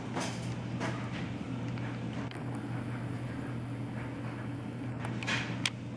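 Steady low room hum, with a few soft clicks and a short rustle near the end.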